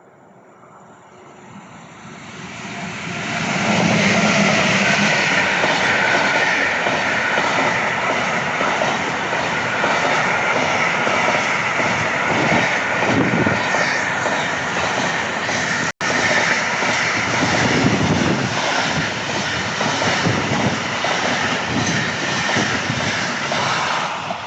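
A train passing at speed, growing louder over the first few seconds, then a long, steady, loud rush of wheels on rails lasting about twenty seconds, with a brief dropout about two-thirds of the way through.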